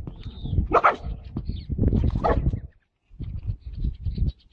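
A dog barking twice, about a second and a half apart, over a low rumbling noise. The sound cuts out briefly about three seconds in, then the low noise returns with faint high chirps.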